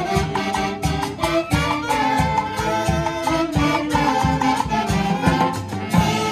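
A live dance orchestra playing up-tempo music, with dense melody lines over a steady, quick percussion beat; the percussion stops near the end, leaving held notes ringing.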